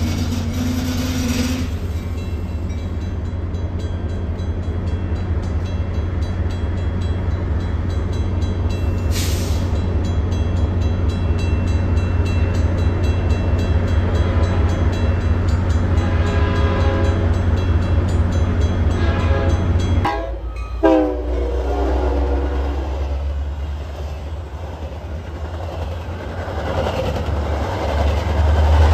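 A train running by with a steady low rumble. Its horn sounds about two-thirds of the way through, its pitch dropping as it ends.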